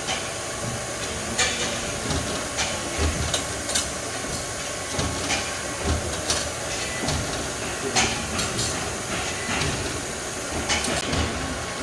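Amada RG-35S hydraulic press brake running under power: a steady hiss and hum from the hydraulic unit, with irregular sharp clicks and low knocks about once a second.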